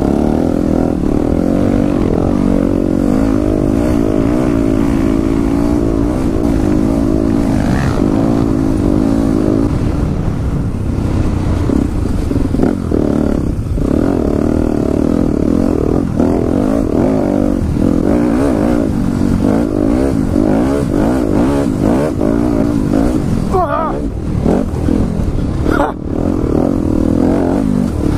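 Dirt bike engine running hard on a dirt road, its pitch rising and falling as the throttle opens and closes through the gears, with wind rushing over the helmet-mounted microphone.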